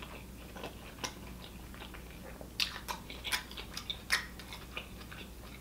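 Close-miked chewing of a mouthful of triple bacon burger: soft wet mouth clicks and smacks, with a run of sharper clicks from about two and a half to four seconds in.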